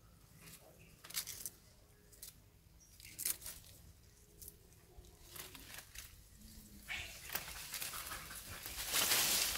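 Leaves rustling and snapping as a long-tailed macaque pulls leaves and eats them, with scattered sharp crackles. From about seven seconds in the rustling of brush grows louder as the monkey moves off through the undergrowth.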